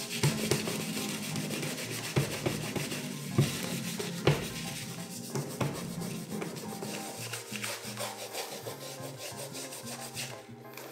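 A wad of tissue rubbing quickly back and forth over a lacquered shoe's surface, a dry scrubbing with a few sharp knocks in the first half, as black lacquer concentrate is worked in to build up shine. Soft background music runs underneath.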